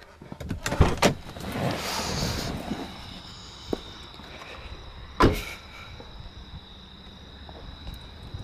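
The rear door of a 2003 Infiniti I35 is opened with a couple of clicks, with rustling as someone climbs out. About five seconds in, the door is shut with a single solid thud.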